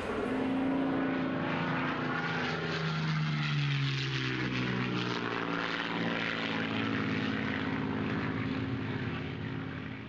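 Propeller-driven light aircraft passing overhead, its engine drone steady with the pitch dropping about three to four seconds in as it goes by.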